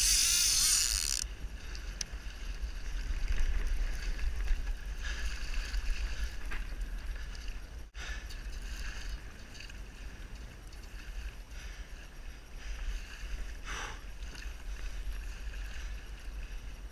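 Choppy seawater slapping and splashing against a kayak hull, with a loud splashy hiss in the first second and a steady low rumble underneath.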